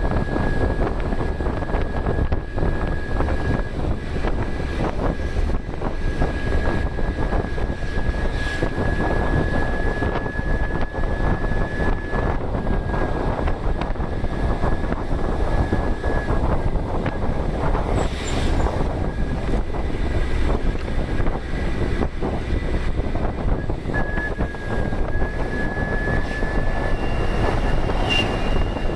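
Ashok Leyland BS-III turbo-intercooled diesel bus engine running under steady load, a thin high turbocharger whistle sounding over the engine and road noise. The whistle fades about halfway through and comes back near the end, with a second, higher whistle joining in the last couple of seconds.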